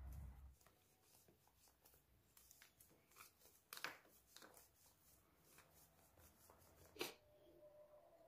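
Near silence: a low hum stops about half a second in, leaving faint scattered clicks and rustles, with two sharper taps, one about four seconds in and one about seven seconds in.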